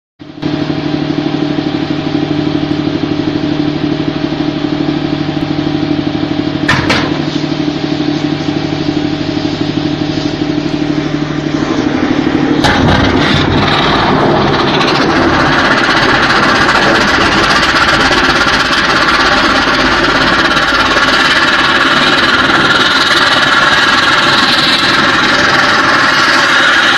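A running engine hums steadily for the first twelve seconds or so. Then a sudden blast sets off the loud, continuous roar of an S-300 surface-to-air missile's rocket motor firing at the launcher, and the roar holds to the end, with the burning missile low by the launcher amid a huge smoke cloud.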